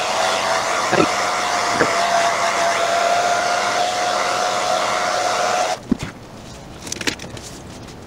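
Handheld hair dryer running with a steady rush of air and a thin whine, switched off suddenly about six seconds in. A few light knocks follow.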